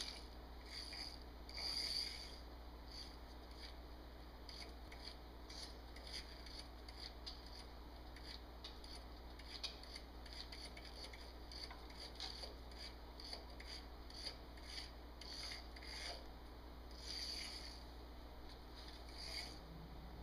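Faint, irregular rustling and scratching of newspaper as a barred owl grips and shifts a remote-controlled toy mouse under its talons, with many small clicks and a few louder scratchy spells, over a steady low hum.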